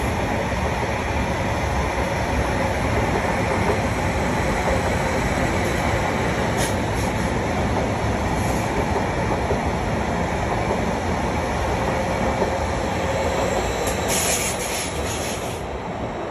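Electric multiple-unit passenger train running past on the main line, a steady loud rumble of wheels on rail, with a few brief high-pitched squeaks near the end as its sound begins to fade away.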